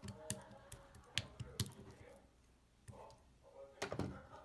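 Scattered small clicks and light knocks, like handling noise, with a denser cluster of knocks near the end.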